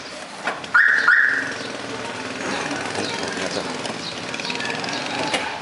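A vehicle horn beeps twice in quick succession about a second in, two short high-pitched blasts over steady street noise.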